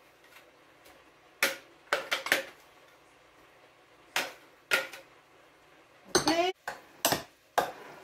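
A spoon knocking and scraping against a food processor jar and a glass bowl while thick ground fruit is emptied out: about ten sharp clacks, irregularly spaced.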